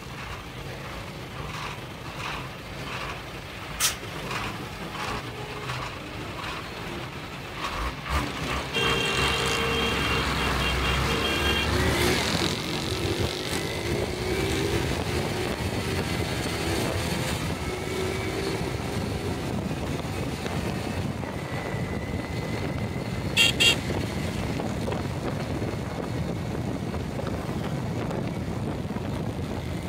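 City road traffic: engines idling and ticking over at a signal, a vehicle horn held for about three seconds around a third of the way in, then steady engine and road noise as the traffic moves off, with two short high beeps later on.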